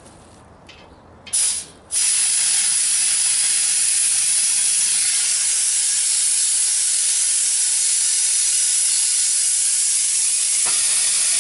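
Compressed air hissing into a truck tire that won't take air: the bead is not seated. A short burst about a second in, then a loud, steady high hiss for about ten seconds.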